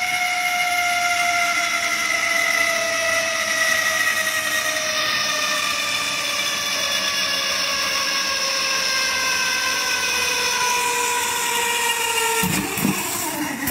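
Zip-line trolley running along a steel cable with a load: a steady hiss with a whine that slowly falls in pitch. It dies away about twelve seconds in, followed by a few low knocks.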